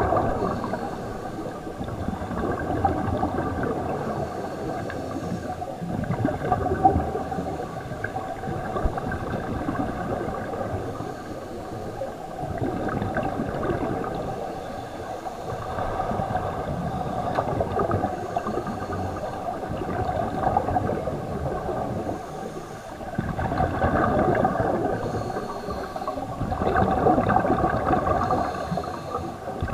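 Scuba divers breathing through their regulators underwater, with surges of exhaled bubbles gurgling up every few seconds over a steady hum.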